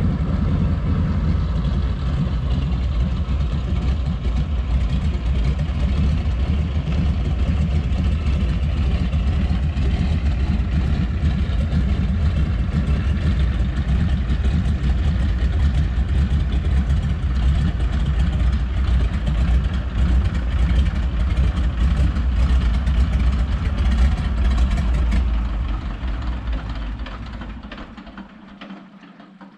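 A steady engine drone with a heavy low rumble that fades out over the last few seconds.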